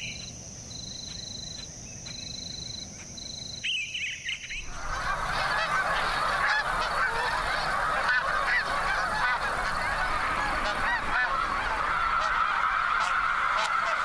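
A large flock of snow geese calling together in a dense clamour of honks that sets in about four and a half seconds in. Before that there is only a high, steady insect trill and a few short bird chirps.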